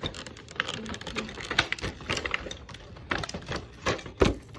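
Irregular clicks, taps and crinkles of small plastic toy pieces and their packaging being handled and unwrapped, with a few louder clicks near the end.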